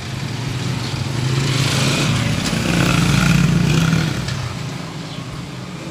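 A motor vehicle's engine passing by, growing louder to a peak about three seconds in and then fading away.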